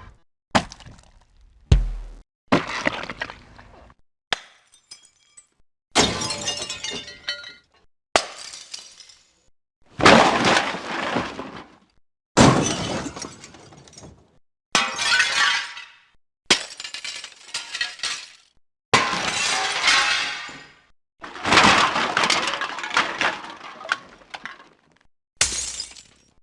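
A run of separate breaking and smashing sound effects, about a dozen, roughly two seconds apart. Each is a sudden crash that dies away, several with a shattering, tinkling tail like breaking glass.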